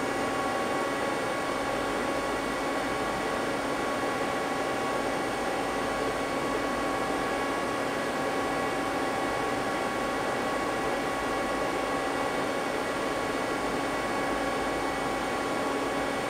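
Steady whir and hum of an idling Mazak CNC lathe, with several steady tones over an even hiss. The machine is not cutting; only a simulation is running on its control.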